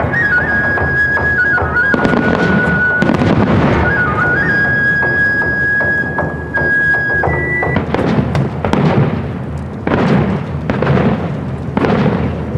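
Aerial fireworks bursting, with a run of sharp bangs a few times a second from about eight seconds in. Under them is music, a single high held melody line that moves in small steps and stops about halfway through.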